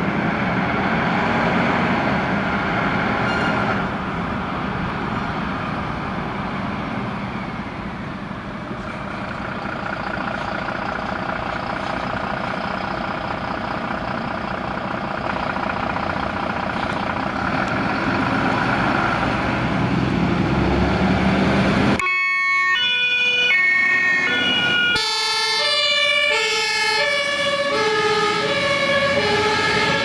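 Diesel engine of a MAN HLF 10 fire engine running with a steady drone as it pulls away. About two-thirds of the way through, the sound changes suddenly to a German two-tone siren (Martinshorn) alternating between two pitches, at first with a second siren overlapping it.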